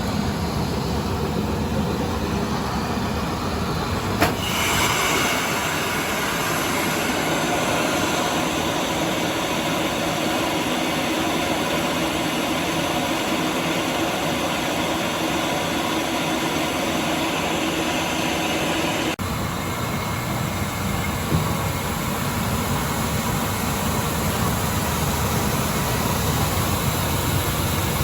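Corn grits milling machine running with a steady, loud mechanical din. A sharp click about four seconds in is followed by a brighter, hissier sound, and the sound shifts abruptly again a little past halfway.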